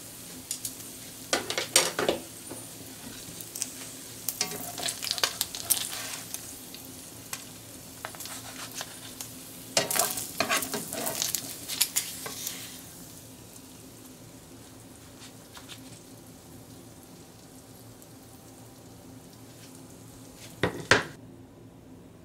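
Pancakes and bacon sizzling in a nonstick frying pan, with clusters of scrapes and taps as a nylon spatula works under the pancakes and lifts them out. The sizzle fades about halfway through, and a single short knock comes near the end.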